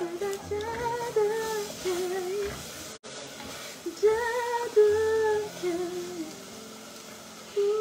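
A woman singing a wordless tune in short phrases of held notes, with a brief break in the sound about three seconds in.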